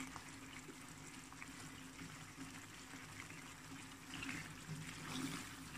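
Faint sizzling of chicken karahi frying in oil in the pan, a little louder about four seconds in.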